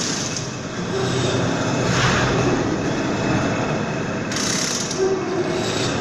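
Horizontal veneer slicer running: steady, loud mechanical clatter, with a brighter surge twice, about two seconds apart.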